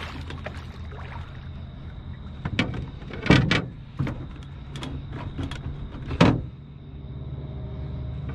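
Several sharp knocks and clatter on the deck of a fishing boat, the loudest a double knock about three seconds in and a last one a little after six seconds, over a steady low hum.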